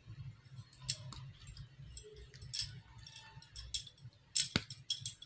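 Dried-mango gravy boiling in a kadai on high flame: scattered sharp pops and crackles over a low steady hum, with a few louder ticks near the end.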